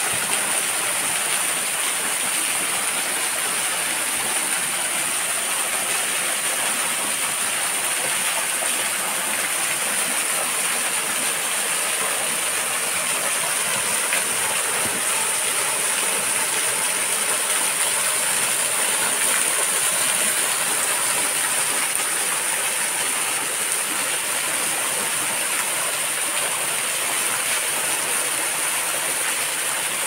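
Steady rushing of a mountain waterfall, even and unbroken, with a thin steady high whine above it.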